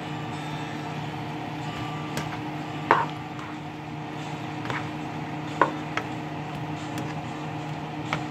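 A spatula knocking and scraping against a nonstick skillet while stir-frying yakisoba noodles and vegetables: several sharp taps at irregular moments, the loudest about three and five and a half seconds in, over a steady low hum.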